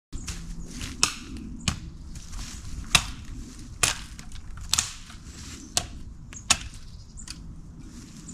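A series of sharp cracks and snaps, irregularly spaced about once a second, over a low rumble, like brush or wood being struck, snapped or trodden on.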